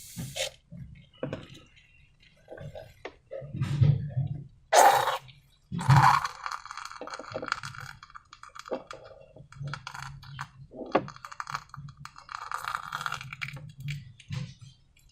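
Slime and balloons being handled by hand: irregular sticky squelches, crackles and small clicks, loudest around five to six seconds in.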